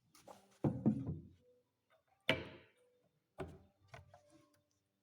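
Wooden knocks and thuds from handling a wooden cabinet door: a cluster of dull thumps under a second in, one sharp, loud knock a little past two seconds, then two lighter knocks.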